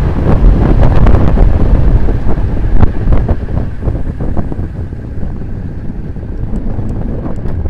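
Heavy wind buffeting on a camera microphone riding a road bike at descending speed, a loud low rumble with scattered knocks and clicks. It eases somewhat after about four seconds.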